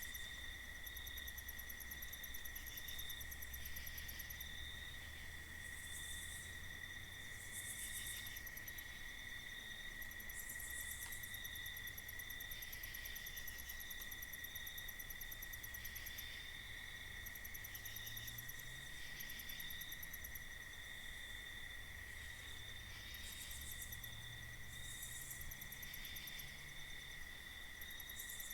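Night insects: a steady, unbroken cricket trill, with higher, pulsing insect calls starting and stopping over it. A faint low hum sits beneath.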